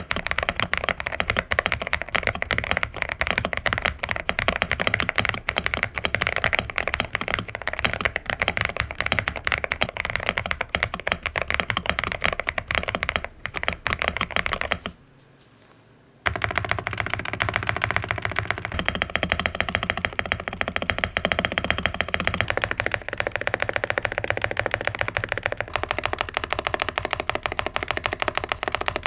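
Fast, continuous typing on an Akko Black & Gold 5098B mechanical keyboard with Akko V3 Piano Pro switches and double-shot PBT ASA-profile keycaps. The key presses stop for about a second midway, then the typing resumes.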